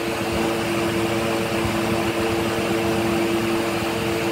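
Steady hum of a small electric motor with a rush of moving air, holding a low steady tone throughout.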